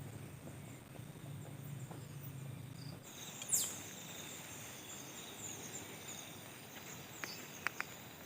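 Quiet forest ambience: a steady high insect drone with small bird chirps. One sharp falling call comes about three and a half seconds in, and a few short clicks come near the end.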